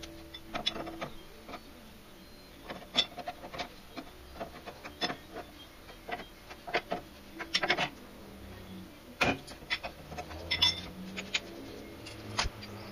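Irregular metallic clicks and clanks of a ball joint separator being fitted and worked onto the steel lower control arm ball joint stud, tool jaws knocking against the arm and the stud's nut.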